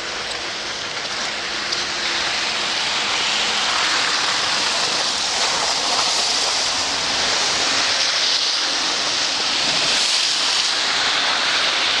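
Steady rushing hiss from a wet, slushy street, rising a little about two seconds in.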